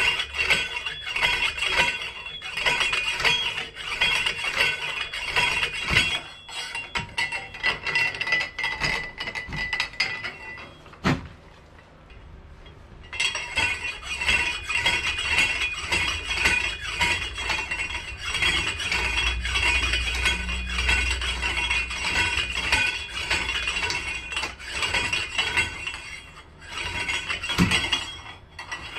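Homemade pump drill of metal pipes, square metal bars and rope, driving a twist bit through a wooden plank: rapid metallic clinking and rattling as the shaft spins back and forth. It stops for about two seconds near the middle, then starts again.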